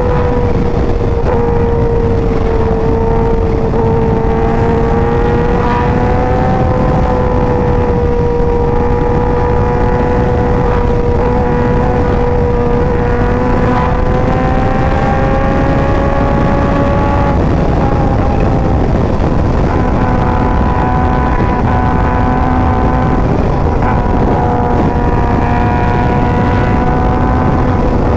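Yamaha R1's crossplane inline-four with an aftermarket Competition Werkes exhaust running at a steady freeway cruise, heard from the rider's own bike over heavy wind rush. Its pitch creeps up slowly, drops a little past halfway, then holds steady again.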